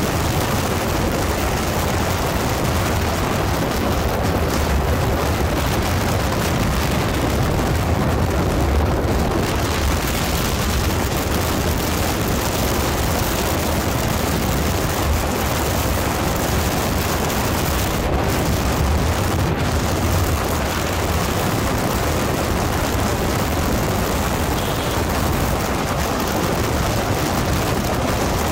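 Steady wind roar buffeting the microphone of a sport motorcycle cruising at highway speed, a deep rumble that covers any engine note.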